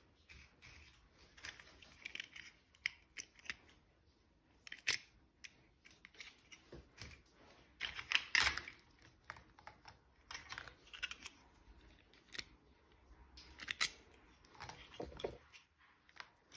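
Small toy packaging being handled and opened by hand: irregular clicks, snips and crinkling of plastic and paper, with louder bursts of rustling about eight seconds in and again near the end.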